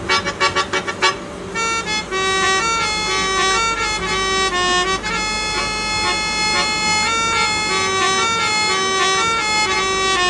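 Indian hand-pumped harmonium being played: about a second of quick repeated notes, a short break, then a melody of held notes.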